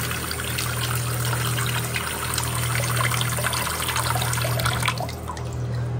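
Bathroom faucet's stream splashing into a sink basin with the drain stopper closed, the water pooling as the basin fills to test the new drain's seal. The flow stops about five seconds in.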